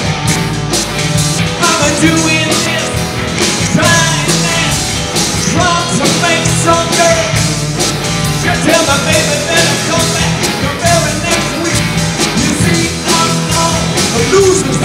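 A live blues-rock band playing: electric guitars, bass and drums, with saxophones.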